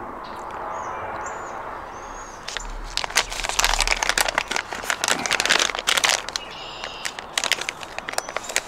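Plastic packaging of a pack of treble hooks crinkling and crackling as it is handled, starting about two and a half seconds in and thinning out after about six seconds.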